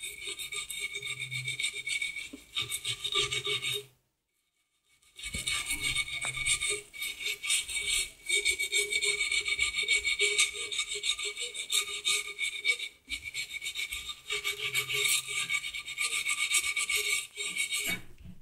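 Steel-wool dish scourer rubbed back and forth in rapid short strokes with bar-soap shavings over the ridged, burnt base of a frying pan, scouring off the baked-on residue. A continuous rasping scrape that breaks off for about a second near four seconds in.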